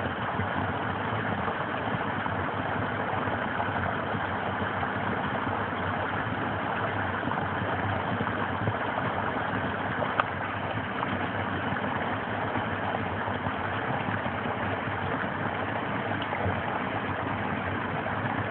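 Snowmelt stream pouring over a small rocky cascade: a steady rush and splash of water.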